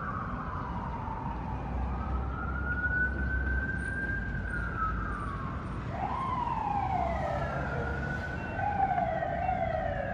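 Fire engine's Federal Signal PA300 electronic siren wailing, rising and falling slowly. From about six seconds in it switches to shorter falling sweeps that overlap one another, over a low rumble of city traffic.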